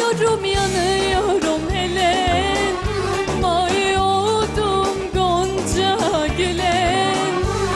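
A young woman singing a melismatic Turkish song with a live band. Her voice holds long notes with wide vibrato and ornamented turns over a steady beat.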